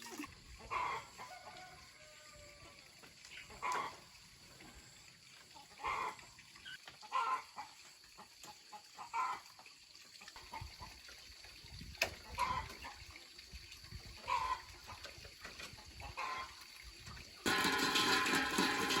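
Chickens clucking, short separate calls every second or two over a quiet background, with one sharp click partway through. Near the end, louder music and a voice come in.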